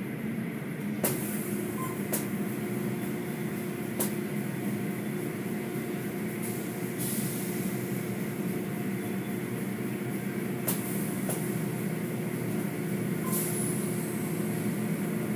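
Automatic car wash machinery heard from inside the car's cabin: a steady hum while the soft-cloth curtain strips sweep over the car. A few sharp knocks are heard, and twice a short spell of hissing spray.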